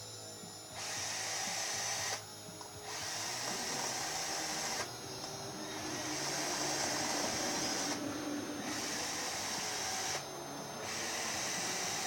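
Electric drill fitted with a socket, run in repeated short bursts of one to three seconds, about five times, spinning out the cylinder head bolts of a 3.5 hp Briggs & Stratton engine.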